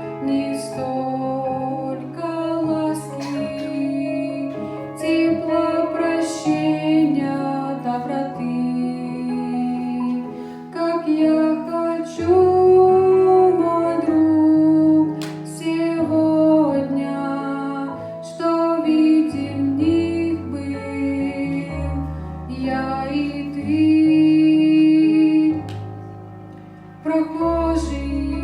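Music from a slow devotional song: a held melody over plucked chords and a stepping bass line.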